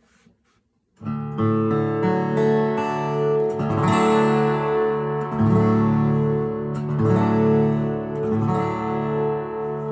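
1956 Gretsch 6003 flat-top acoustic guitar playing a slow series of chords. It begins about a second in, with a new chord struck every second and a half to two seconds, each left to ring.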